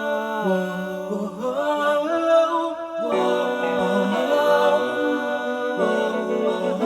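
Background music: slow, sustained chords with wordless vocal-like tones that change about every second or two.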